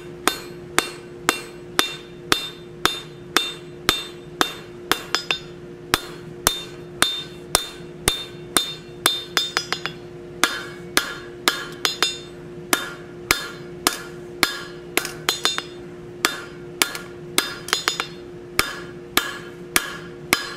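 Blacksmith's hammer striking hot quarter-inch mild steel flat stock on an anvil, steady blows about two or three a second, each with a short metallic ring, working out the shoulder of a forged oak leaf. A steady hum runs underneath.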